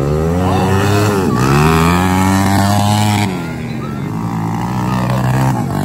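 Several pit bike engines revving together as a pack of small dirt bikes races, their pitches rising and falling as the riders throttle and shift. Loudest for the first three seconds, then dropping back somewhat.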